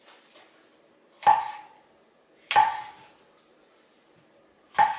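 A chef's knife cutting through brown champignon mushrooms and striking a bamboo cutting board, three sharp chops, each with a brief ring.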